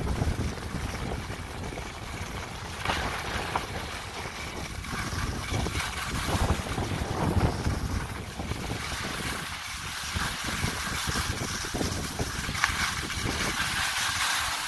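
Skis sliding and scraping over spring snow with a steady hiss, under low wind buffeting on the microphone from skiing downhill.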